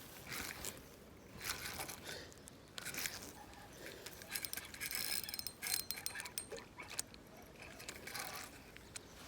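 Fishing reel being cranked in irregular spurts, with scraping and clicking.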